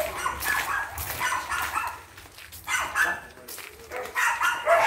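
Dog barking repeatedly in short bouts.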